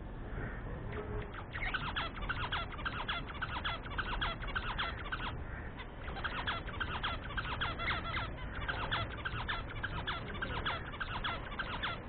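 Budgerigar chattering in a fast, unbroken run of short chirping notes, starting about a second and a half in, with a brief pause near the middle.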